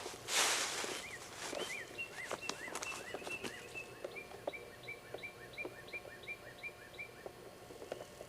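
A bird singing a long series of short, evenly repeated high chirps, about three a second. A loud rustle comes just after the start, with faint clicks and knocks scattered through.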